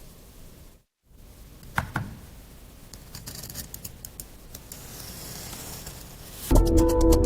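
Fine-toothed metal comb raking through kinetic sand: a gritty scratching with two sharp clicks about two seconds in. Loud music with a fast clicking beat comes in near the end.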